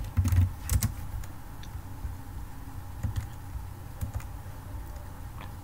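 Typing on a computer keyboard: a quick run of keystrokes in the first second, then a few scattered clicks.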